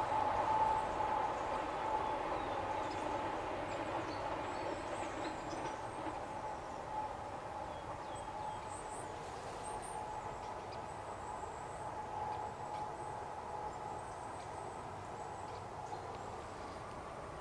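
ES2G Lastochka electric train running away into the distance, its steady hum and rumble slowly fading. A few faint bird chirps come through near the middle.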